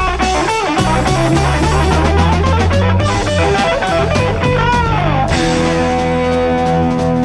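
Hard-rock band playing an instrumental break live: electric guitar lead with bent notes over bass and drums. A little past five seconds in, the guitar settles on a held, ringing note while the drums keep playing.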